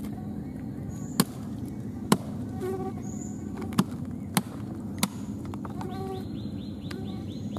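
Steady drone of insects buzzing in swamp forest, broken by five sharp knocks spread over a few seconds that stand out as the loudest sounds. A few short high chirps sound over it.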